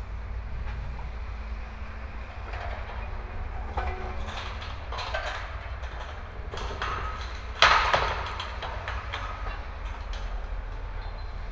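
Hitachi 210 excavator's diesel engine running with a steady low rumble while its bucket scrapes and knocks against rocks, with one loud clank about two-thirds of the way through.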